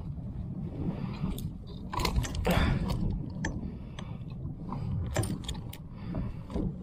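A run of sharp clicks, knocks and rattles, loudest about two to three seconds in and again near five seconds, from a landing net and fishing gear being handled on a plastic kayak, over a low rumble of wind and water.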